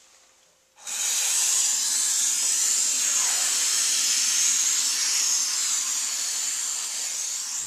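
Two-component low-pressure spray polyurethane foam gun hissing steadily as foam is sprayed into a rim joist, starting about a second in.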